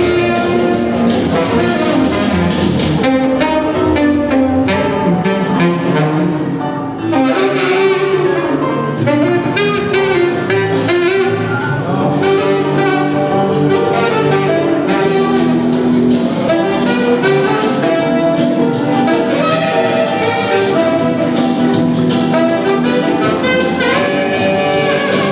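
Saxophone playing a jazz-blues tune live, a continuous melodic line over a steady rhythmic accompaniment.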